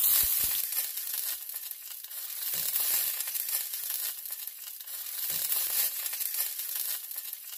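A tomato hornworm frying in very hot olive oil in a stainless steel skillet: a steady sizzling hiss that swells and eases a few times.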